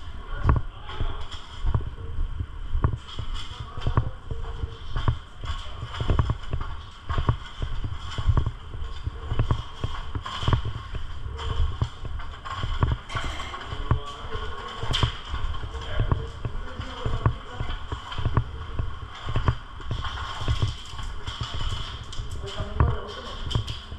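Footsteps of a player moving at about two steps a second: dull, irregular thumps, with faint voices in the background.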